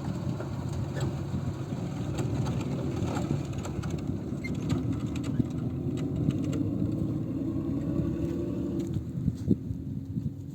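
A motor running steadily with a low drone, its pitch drifting slightly near the end, with scattered light clicks over it.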